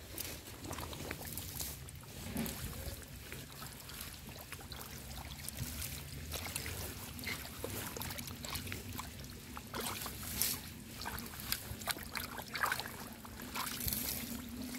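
Hands rummaging through wet algae in shallow pond water, with scattered small splashes and wet squelches over a steady low hum.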